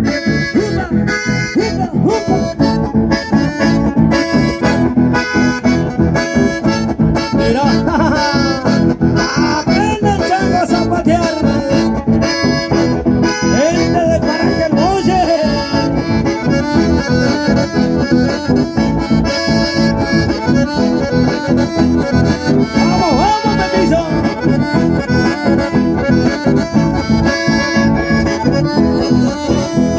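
Chamamé played on accordion with a steady dance beat.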